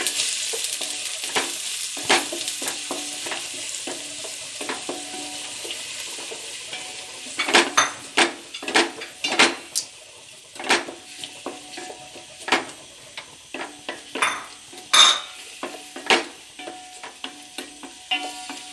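Onions sizzling in hot oil in a pan, the sizzle easing off over the first several seconds. Then a spatula knocks and scrapes against the pan again and again as the onions are stirred and sautéed.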